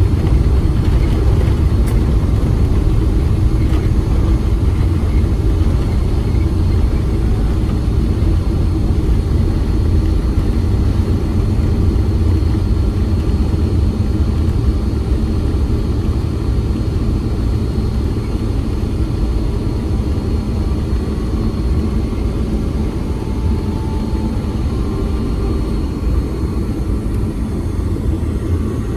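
Cabin noise of a Boeing 777-300ER on its landing rollout: a heavy, steady rumble from the GE90 engines and the wheels on the runway, easing slightly as the jet slows.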